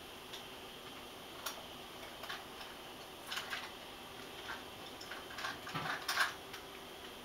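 Scattered soft taps and scrapes as a ragdoll cat shifts its paws and body in a small wooden box, with the busiest, loudest cluster about five to six seconds in.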